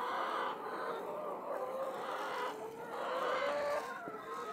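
A large flock of brown laying hens clucking together in a continuous chorus of many overlapping calls.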